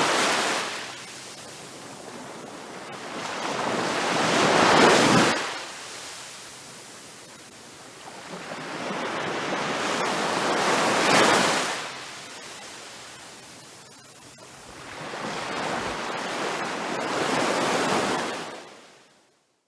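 Large ocean waves crashing, each one swelling up and breaking roughly every six seconds: the tail of one crash, then three more, before the sound fades out near the end.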